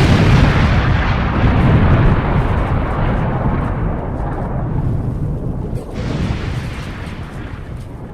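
Low rumble of an explosion slowly dying away, with a second, smaller burst about six seconds in.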